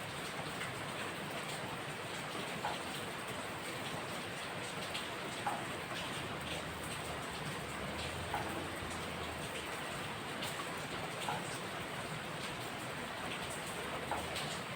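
Steady rain falling, with a few louder individual drops landing close by every few seconds.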